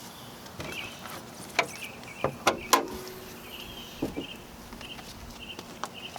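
Clicks and knocks of a Camaro's hood being unlatched and opened: several sharp knocks in the middle, the loudest one ringing briefly. Faint insect chirping repeats in the background.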